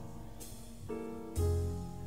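Live small-group jazz: piano chords over a double bass line, with light cymbal strokes from the drums; new chords strike about a second in and again half a second later, the second with a deep bass note under it.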